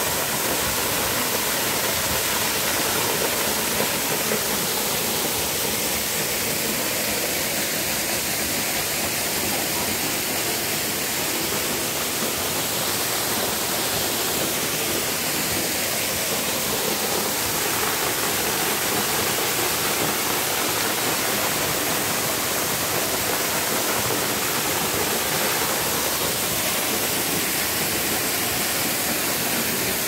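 Waterfall pouring onto rocks: a steady, unbroken rushing of falling water.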